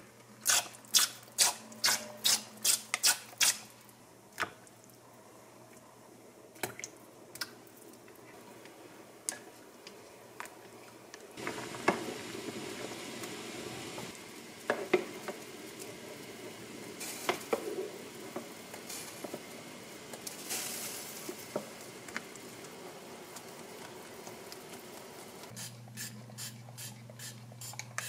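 Pump spray bottle of cooking oil spritzing into an empty pot, about eight quick sprays over a low hum. Then potato gnocchi boiling in a pot of water, stirred with a wooden spoon, with a few knocks of the spoon against the pot. Another run of quick oil spritzes near the end.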